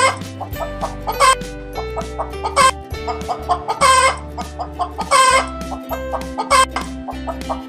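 Hen clucking, with a loud squawking call about every second and a half, six times, over a children's music track.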